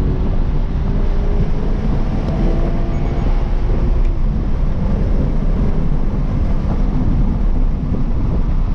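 A 2023 Toyota GR86's 2.4-litre flat-four pulling hard at speed on a race track, heard from inside the cabin under heavy road and wind noise. The engine note climbs slowly over the first few seconds.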